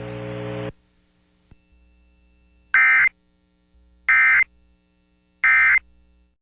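Emergency Alert System end-of-message code: three short, shrill digital data bursts about 1.4 s apart, closing a tornado warning broadcast. Before them, the broadcast's hiss and hum cuts off under a second in.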